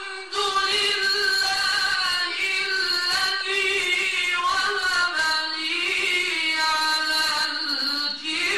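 A man reciting the Qur'an in the melodic mujawwad (tajwid) style, one voice drawing out long, ornamented notes that rise and fall in pitch.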